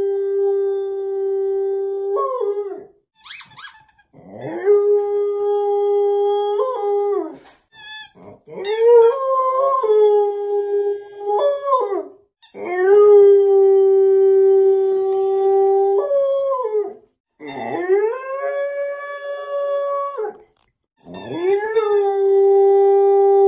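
A young dog howling: a run of about six long howls, each held on a steady pitch for two to four seconds with short breaks between, several ending in an upward bend.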